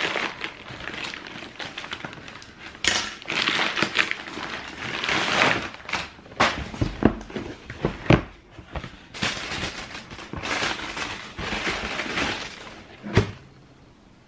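A cardboard shoebox and its paper wrapping being unpacked by hand: rustling and crinkling, broken by a run of sharp knocks and bumps as the box and its lid are handled. There is one more thud shortly before the end, then it goes quiet.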